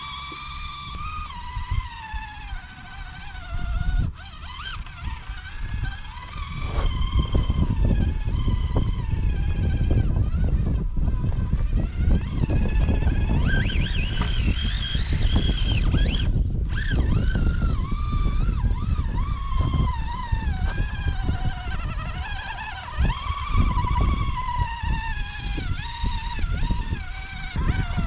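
Whine from a 1/24-scale Axial SCX24 rock crawler's Furitek outrunner motor and gears, rising and falling in pitch as the throttle is worked, over a low crackling rumble that grows louder after a few seconds.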